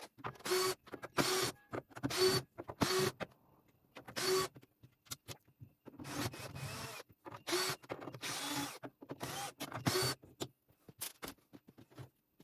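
A small electric motor switched on and off in about a dozen short bursts, each under a second, with its pitch rising as it starts up.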